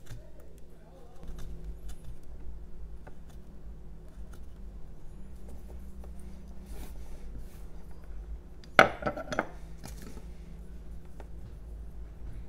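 Carving knife scraping and cutting a jelutong block in faint, scattered strokes. About nine seconds in, the knife is put down with a sharp metallic clink that rings briefly, followed by a smaller knock.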